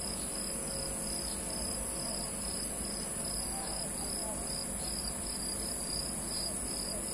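A split air conditioner's outdoor unit runs with a steady low hum while its compressor pumps the refrigerant down, the small liquid valve already shut and the large suction valve being closed. Over it, insects chirp with a steady high trill and a regular pulse about three times a second.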